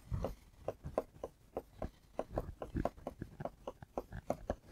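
A stylus tapping and scratching on an interactive display board during handwriting: a faint, irregular run of short clicks, several a second.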